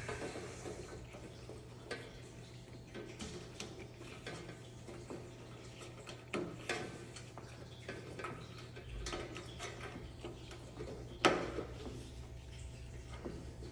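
Irregular light clicks and taps of an LED strip being pressed into its small plastic holding clips, the sharpest about eleven seconds in, over a steady low hum.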